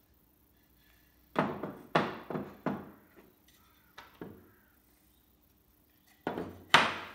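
Hardwood pieces knocked and set down on a perforated wooden workbench top: four quick wooden knocks about a second and a half in, two lighter ones around four seconds, and two more near the end, the last the loudest.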